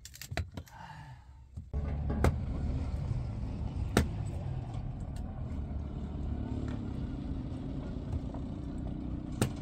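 A few sharp chops of a hatchet splitting kindling wood, then, from about two seconds in, a steady low rumble with a few scattered knocks.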